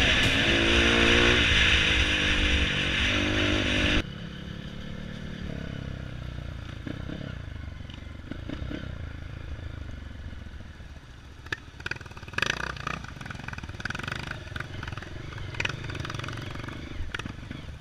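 Off-road motorcycle engines running and rising and falling in pitch, loud at first, then dropping abruptly to a quieter rumble about four seconds in, with scattered clatter and knocks later on.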